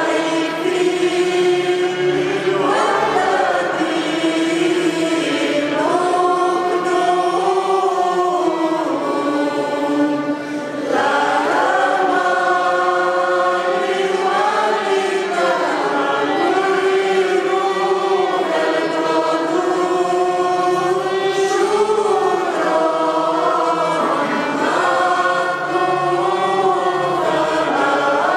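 Mixed church choir singing a hymn in sustained phrases, accompanied by a violin, with a short break between phrases about ten seconds in.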